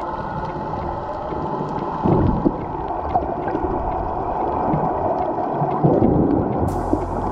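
Underwater sound picked up by a camera while snorkeling: a muffled, churning water rumble with faint scattered clicks. It swells louder twice, about 2 seconds and 6 seconds in, and a sharper hiss comes in near the end.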